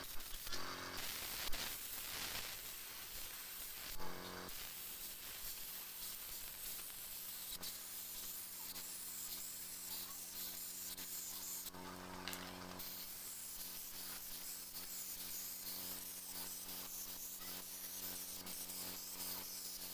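Compressed-air paint spray gun spraying paint onto a steel frame, a steady hiss with a low hum beneath.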